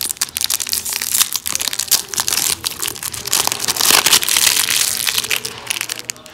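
Cadbury Five Star bar's foil-lined plastic wrapper crinkling and crackling as it is peeled open by hand, loudest about four seconds in.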